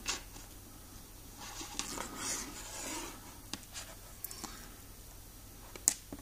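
Fingers twisting stripped wire ends together and handling the insulated wire: soft rubbing and rustling, with a few small clicks and one sharper tick near the end.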